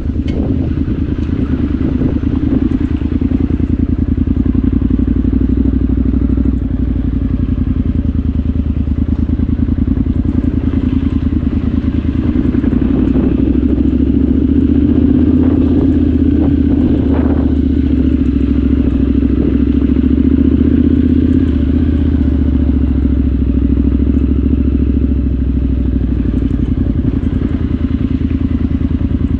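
Triumph Scrambler 900's parallel-twin engine running steadily at low speed, with light clatter and crackle from the tyres rolling over gravel.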